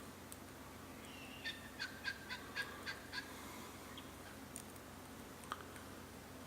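Bird calling: a quick series of about seven short chirps, roughly four a second, lasting under two seconds, followed by a few faint scattered ticks.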